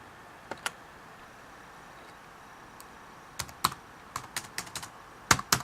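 Keystrokes on a ThinkPad T61 laptop keyboard: two lone clicks in the first second, then a run of quick typing from a little past halfway.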